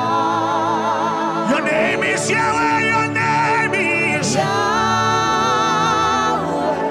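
Gospel worship music: voices singing long, wavering notes over a steady held accompaniment.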